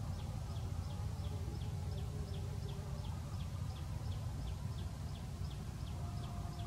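Outdoor ambience: a steady low rumble under a short, high, falling chirp repeated evenly about three times a second.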